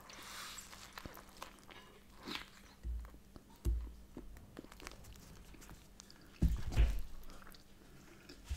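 Close-up eating: bites into a soft bagel filled with smoked salmon and cream cheese, then chewing with many small wet clicks. A few dull thumps come through, the loudest about six and a half seconds in.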